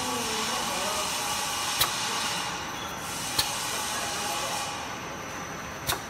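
Semi-automatic perfume bottle filling and crimping machine running: a steady hiss with three sharp clicks, about a second and a half to two and a half seconds apart.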